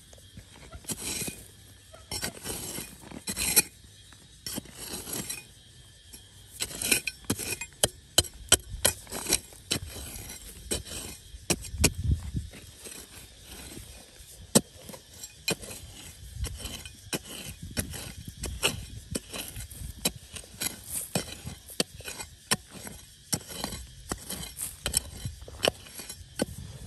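Hard objects clinking and scraping against each other in many sharp, irregular clicks and knocks.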